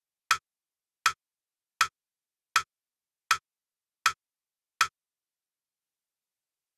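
Click-track beat pulse counting in the crotchet beat before a music extract: seven evenly spaced clicks about three-quarters of a second apart, stopping about five seconds in.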